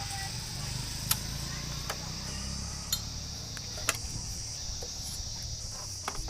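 About five sharp metal clicks, roughly a second apart, as a wrench works the tappet adjuster cap on a Hero Splendor engine, over a steady chirring of crickets.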